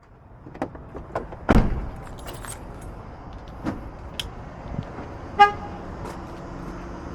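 Sounds around a vehicle: scattered clicks and knocks, a heavy thump about one and a half seconds in, and a short horn-like beep about five seconds in.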